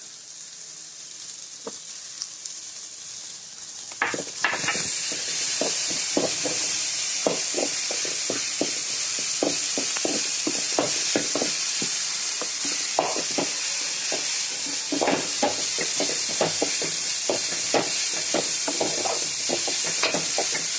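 Sliced onions and ginger-garlic paste sizzling in oil in an aluminium kadai, stirred with a wooden spatula that scrapes and taps against the pan. The sizzle turns much louder about four seconds in, and the quick stirring strokes run on after that.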